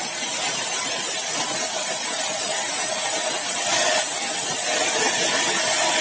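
Sawmill saw running through hard bengkirai (balau) wood: a loud, steady noise with a constant tone under it, changing slightly about four seconds in.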